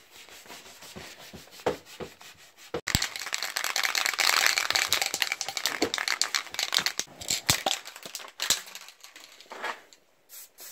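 Aerosol spray paint can shaken hard, its mixing ball rattling rapidly for several seconds from about three seconds in. Lighter knocks and rustling come before and after it.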